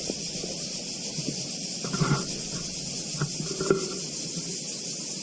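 A steady, high-pitched chorus of insects buzzing without a break, with a few faint short sounds in the background.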